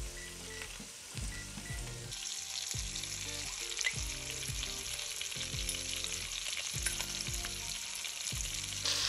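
A microwave keypad beeps several times, short and high. About two seconds in, sausage pieces start sizzling in hot bacon grease in an enameled Dutch oven, a steady crackling hiss of frying.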